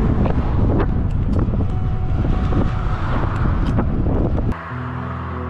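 Wind buffeting the microphone of a camera riding along on a bicycle, a heavy low rumble with scattered clicks and rattles. About four and a half seconds in it cuts off suddenly and gives way to soft music with long held tones.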